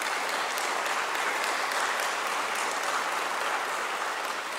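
Audience applauding: steady clapping of many hands that starts to die down near the end.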